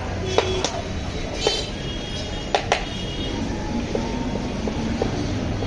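Rubber tube patch being scraped by hand with a small wire brush to roughen it for the glue, with a few sharp clicks in the first three seconds, over a steady background of street traffic noise.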